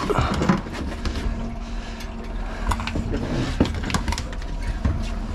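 Boat engine running with a steady low drone, a steady hum coming in about two seconds in, and scattered short knocks and clatters over it.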